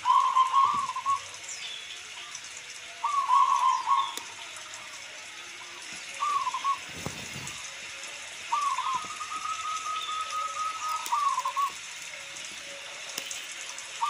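Zebra dove (local perkutut) cooing: four bouts of short, wavering coos, the fourth drawn out for about three seconds into a quick run of repeated notes, over a steady hiss of rain.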